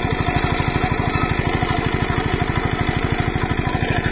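A small engine running steadily at constant speed, with a fast, even pulse throughout.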